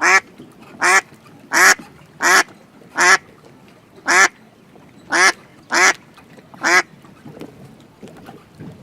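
Duck quacking: about nine short quacks, roughly one a second, that stop about seven seconds in.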